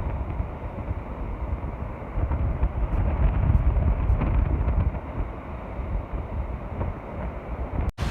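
Gusty wind buffeting the microphone over the wash of rough surf on a stormy sea. The sound cuts out for an instant near the end.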